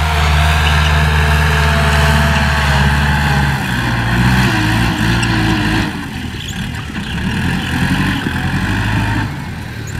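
Kubota L4708 tractor's four-cylinder diesel engine running under load as it pulls a disc harrow through the soil. The engine note shifts lower about three and a half seconds in, and the sound grows quieter from about six seconds.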